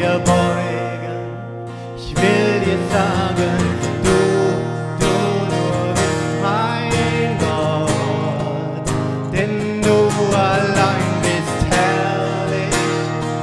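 Acoustic guitar strummed as accompaniment to a worship song, with a voice singing the melody in German.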